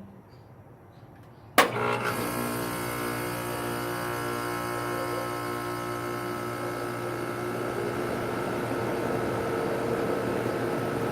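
A 2017 Rheem central air conditioner's outdoor unit starting up: a sharp click about a second and a half in as it switches on, then the compressor and Genteq condenser fan motor running with a steady hum and whir.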